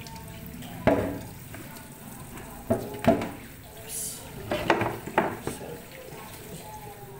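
Kitchen tap running into a plastic colander as chicken feet are rinsed and rubbed by hand. Sharp knocks and clatters of the colander and feet against the sink come about a second in and again several times between about three and five and a half seconds in.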